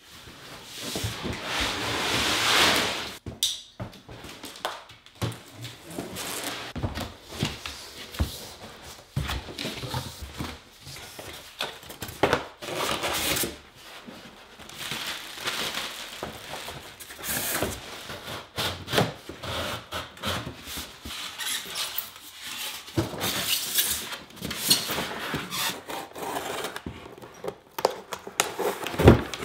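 Cardboard packaging being handled and opened: irregular scraping, rustling and knocks as a large shipping box is moved, its flaps opened and smaller boxes lifted out, with a longer rush of scraping about two seconds in.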